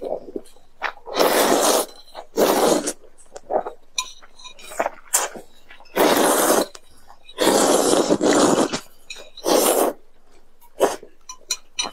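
Loud slurping of noodles in black bean sauce: about five long sucking slurps a second or two apart, with short clicks and mouth smacks between them.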